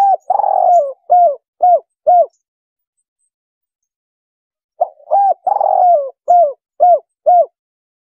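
Spotted dove (tekukur) cooing its 'kuk 3' call, the type used as a lure call. There are two phrases, the second beginning about five seconds in. Each is a longer rolling coo followed by three short, evenly spaced 'kuk' notes.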